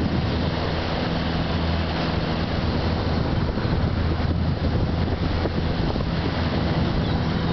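Boat engine running steadily, a low drone under wind on the microphone and rushing water.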